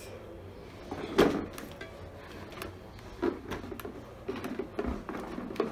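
Plastic ride-on toy rumbling and rattling as it is pushed along over a rug, with a few knocks, the loudest about a second in.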